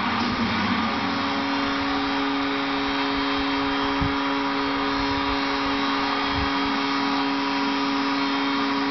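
Hockey arena crowd cheering, with a steady low horn starting about a second in and holding: the arena's horn sounding at the final buzzer of a win.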